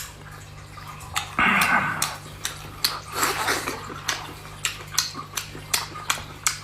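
Eating sounds from spicy sea snails: one loud slurp about a second and a half in, then a run of short wet chewing and lip-smacking clicks.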